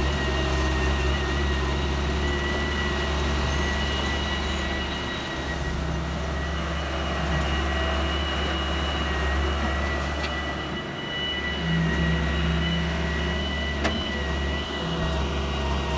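Heavy machinery engine running steadily, with a thin steady whine above it and one sharp knock near the end.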